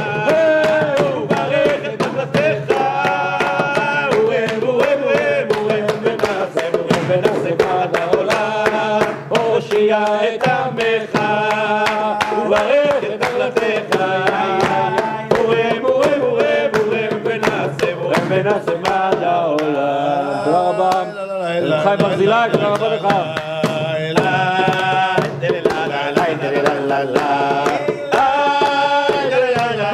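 Men singing a lively Hebrew religious song together, clapping along to a fast darbuka beat.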